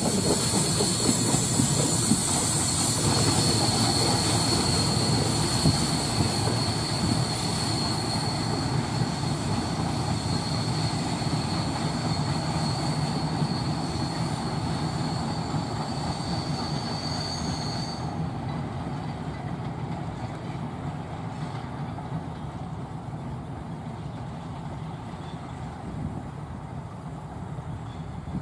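Bangladesh Railway passenger coaches running away on a curve: steady wheel-on-rail rumble with a high, steady wheel squeal from the curve. The squeal stops about two-thirds of the way through, and the rumble slowly fades as the train recedes.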